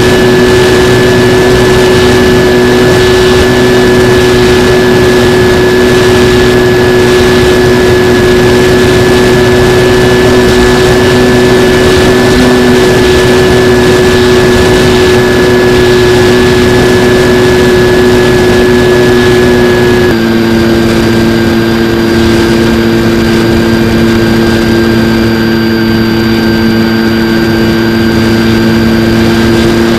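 Skywalker X-8 flying wing's electric pusher motor and propeller running at a steady high-pitched drone, heard from the plane's own camera with wind noise over it. About two-thirds of the way through, the pitch steps down slightly as the throttle changes.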